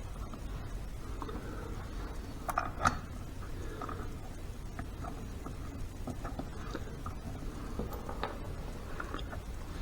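Light, scattered clicks and taps of bolts being handled and started by hand into a Harley 5-speed transmission's door, with a slightly louder pair of knocks about three seconds in.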